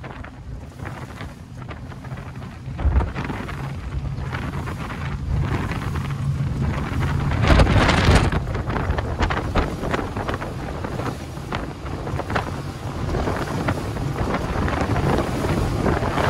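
Wind buffeting the microphone over the steady drone of three Yamaha 425 hp V8 outboards running at speed, around 50 knots, with hull and water rush beneath. Two louder surges come about three seconds in and at about eight seconds.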